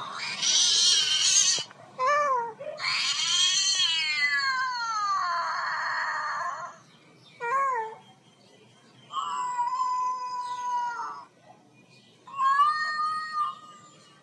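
Cat meows and yowls, most likely a recording played back to the cat: a harsh hiss-like cry, then five separate calls, the longest drawn out for about four seconds and falling in pitch.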